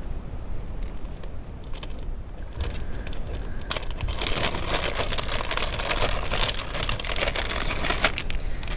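Crinkling and rustling of plastic packaging as a new sewing machine's power cord is taken out, faint at first and then loud and crackly from about four seconds in.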